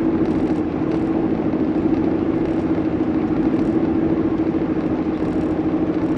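Steady road and engine noise inside an Ecto-1 replica car cruising on the interstate, with a constant low drone.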